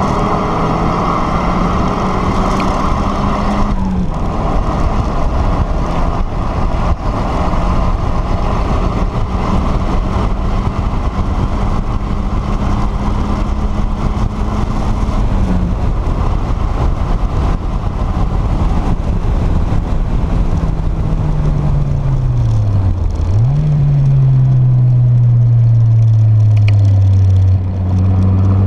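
Turbocharged Mazda MX-5's four-cylinder engine pulling hard on track, heard from the open-top cabin under heavy wind and road noise. The engine note drops at a gear change about 4 seconds in and holds steady. After about 16 seconds it falls away as the car slows, dips, then jumps back up near 23 seconds as a lower gear is taken, and settles at a lower pitch.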